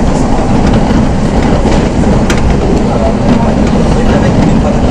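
SNCF Z 5600 double-deck electric train running at speed, heard from inside the carriage: a steady rumble of wheels on the track, with a sharp click about two seconds in.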